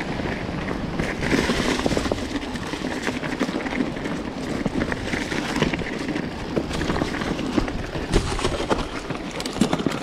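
Mountain bike riding over rocky, leaf-covered singletrack: a continuous rush of tyre and wind noise, broken by frequent clicks, knocks and rattles from the bike on the rough ground.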